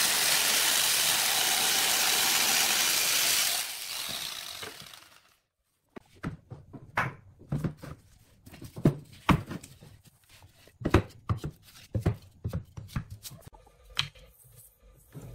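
Electric jigsaw cutting through a wooden board, a loud steady buzz that fades away about four seconds in. After a short silence comes a string of irregular wooden knocks and clacks as wooden blocks are set down and shifted on a board.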